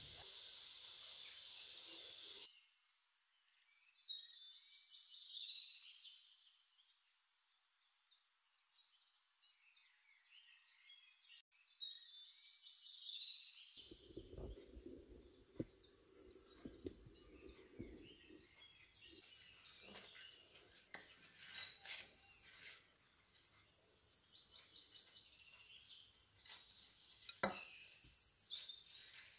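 Birds chirping in short high calls every several seconds over quiet room background, with faint clicks and rustles from hands working soft dough in a glass bowl.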